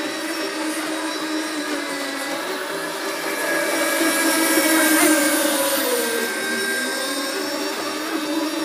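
Outlaw-class 7.5 cc radio-controlled racing boat engine running flat out with a steady high whine. It grows louder as the boat passes close, about five seconds in, then its pitch drops as the boat moves away.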